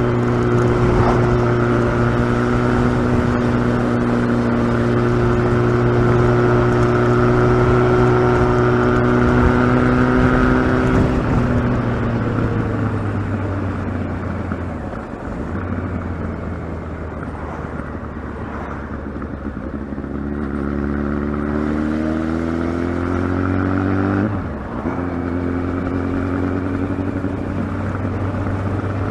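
Kawasaki ZX-12R's inline-four engine running at a steady speed, then falling off about 12 seconds in. It climbs again from about 20 seconds in, with a brief drop in revs near 24 seconds like a gear change, and settles steady again.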